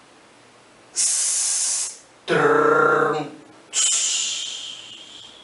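A man's voice drawing out a long hissing 's' sound twice, with a short spoken word between, imitating the sibilant sounds of a poem's verse. The second hiss fades away toward the end.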